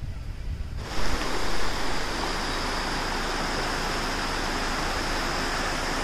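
Rushing water of a rocky river running over shallow rapids: a steady, even hiss that starts suddenly about a second in, after a low wind rumble.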